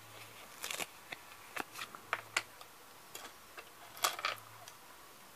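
Light clicks and taps of small plastic Playmobil accessories and a paper sticker being handled, a dozen or so scattered clicks with a louder cluster about four seconds in.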